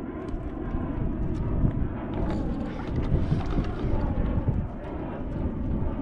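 Wind buffeting the microphone at sea: a steady, uneven low rumble with a few faint ticks.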